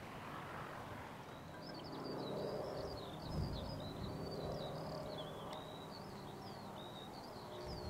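A bird singing a continuous, rapid, high warbling song that starts about a second and a half in. Beneath it runs a low, steady background drone.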